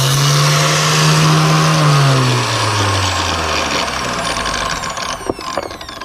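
Power tool with a large abrasive cut-off disc cutting through a metal workpiece, its motor running under load with a harsh grinding hiss. About two seconds in the motor is let off, and its pitch and the disc's whine fall away over the next few seconds as it spins down.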